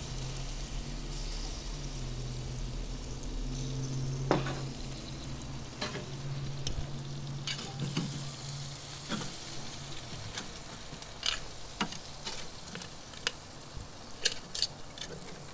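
Glazed wild boar rib roasts sizzling on a hot grill grate. From about a third of the way in come scattered sharp clicks and taps as steel tongs lift and turn the meat.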